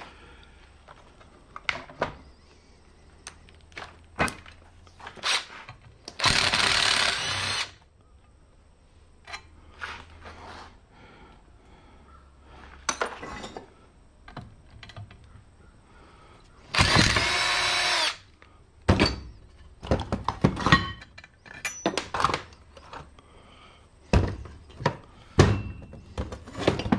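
Power drill running twice, each time for about a second and a half with a steady whine, amid scattered knocks and clanks of metal parts being handled during the planer's teardown.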